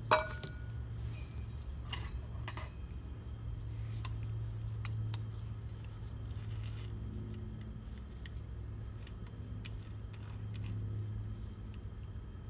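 Metal automatic-transmission hard parts being handled and turned over: one sharp metallic clink with a short ring right at the start, then scattered light clicks and taps, over a steady low hum.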